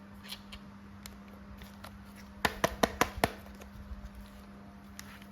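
Sharp plastic clicks and taps from handling a toy action figure: a quick cluster of about five a little before the middle, a few fainter ones elsewhere, over a steady low hum.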